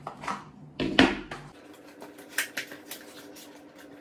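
A small cardboard box being handled and its snug lid worked open: rubbing and scraping of card, with a sharp knock about a second in, then a run of light clicks and taps.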